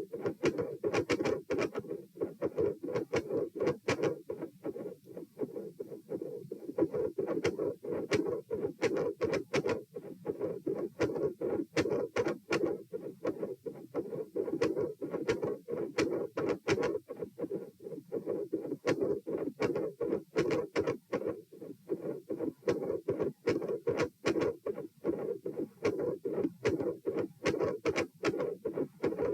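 Heartbeat heard through a stethoscope at the pulmonic area, a rapid train of repeated beats with the rhythm disrupted by repeated dry swallowing, which the recorder takes for a swallowing-induced rise in heart rate with premature atrial contractions (PACs).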